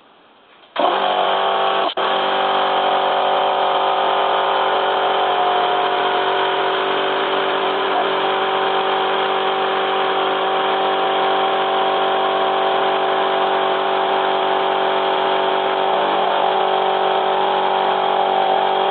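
Twin-piston air compressor switching on about a second in and running steadily, too sluggishly for a two-piston unit, which should pump twice as fast. The weak pumping turns out to come from a broken valve under the cylinder head.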